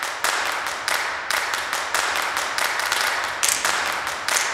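Background music intro: a run of sharp, noisy percussive hits, about two a second, with no bass.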